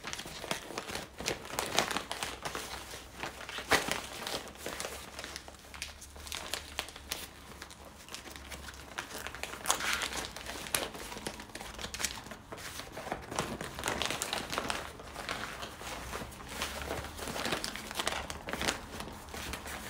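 Stiff sego gele headwrap fabric crinkling and rustling in irregular crackles as it is folded and pleated around the head.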